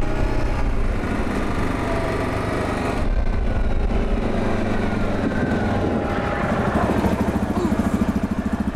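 ATV engine running while riding over a snowy track. About seven seconds in it drops to a slower, evenly pulsing idle.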